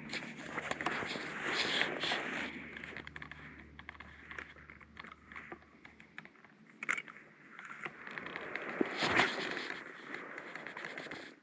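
A person's footsteps walking, with small scrapes and clicks underfoot, louder in the first few seconds and again about nine seconds in.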